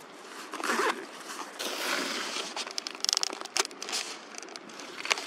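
Rustling and handling of clothing and gear close to the microphone, with scattered light knocks and a brief rapid rasp like a zipper about three seconds in.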